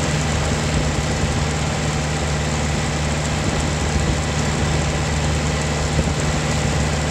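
John Deere tractor engine running steadily at a constant speed while the tractor drives along a gravel road, a low even hum with a steady hiss over it.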